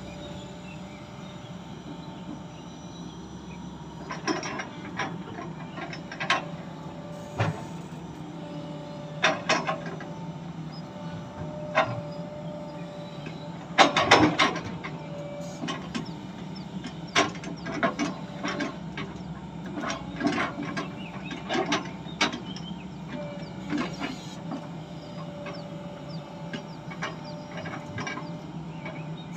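XCMG excavator with a log grapple loading rubberwood logs: the diesel engine hums steadily under a string of sharp knocks and clanks as logs strike one another and the trailer's steel bed and stakes, loudest about halfway through, with short hydraulic whines between them.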